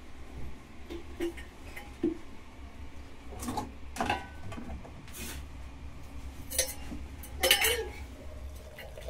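Several short knocks and clinks of objects being handled, the loudest about seven and a half seconds in, over a faint low hum.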